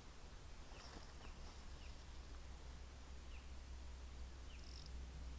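Faint bush ambience: small birds give short, high, falling chirps every second or so over a low steady rumble.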